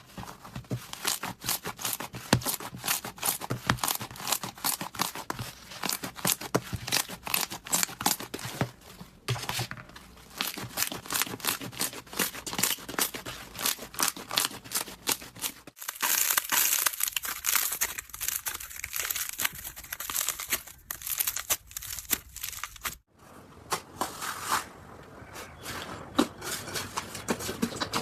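Hands squeezing, pressing and stretching slime, giving dense crackling and popping clicks. It is cut into several clips that change abruptly three times, with a crisper, sharper stretch in the middle.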